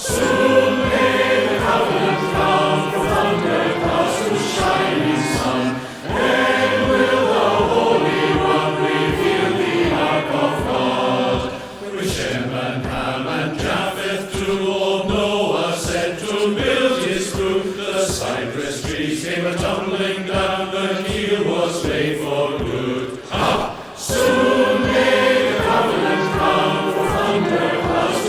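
Choir singing with instrumental accompaniment, in phrases of several seconds with short breaths between them, over a steady beat.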